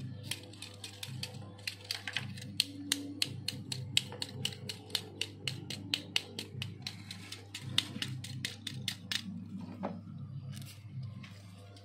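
Rapid, sharp plastic clicks and taps, about four a second, from a small plastic toy car being handled, stopping about nine seconds in. Background music plays underneath.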